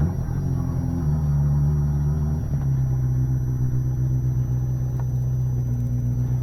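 Suzuki GSX250S Katana's 250 cc inline-four running under way. The pitch steps as it changes gear twice in the first few seconds, then holds a steady note at cruising speed.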